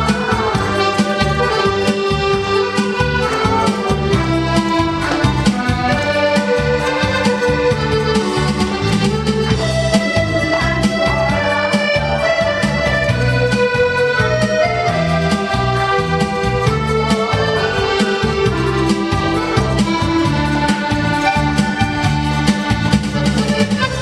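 Piano accordion playing a melody of held notes over a steady, rhythmic bass accompaniment.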